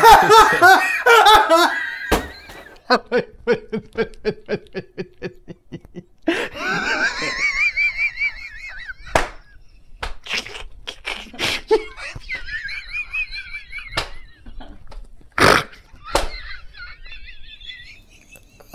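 A man laughing hard and at length: a quick run of short ha-ha pulses, then high, wavering squeals of laughter in fits, with a few sharp loud bursts near the end.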